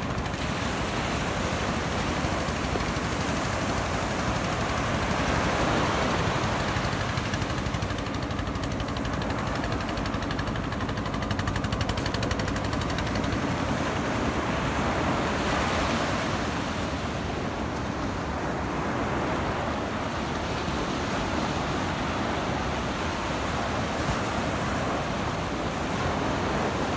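Surf breaking and washing up a sandy beach, a steady rushing noise that swells every few seconds as waves come in, with wind buffeting the microphone.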